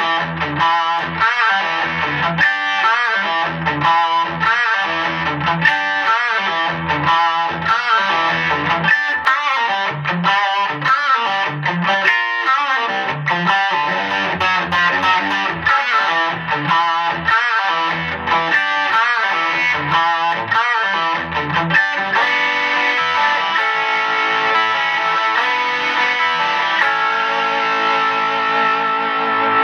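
335-style semi-hollow electric guitar played through distortion. It plays choppy rhythmic riffing with short low notes, then about two-thirds of the way through changes to longer held, ringing chords.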